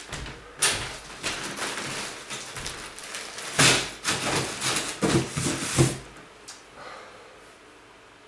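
Clothes hangers being handled and dropped into a cardboard box: a run of clattering knocks with rustling between them, stopping about six seconds in.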